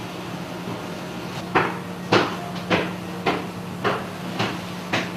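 A series of sharp knocks, about two a second, starting about one and a half seconds in, over a steady low hum.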